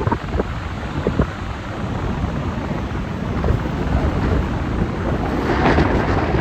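Stormy sea: surf churning and breaking, with wind rumbling across the microphone. A larger wave crashes, louder and brighter, about five and a half seconds in.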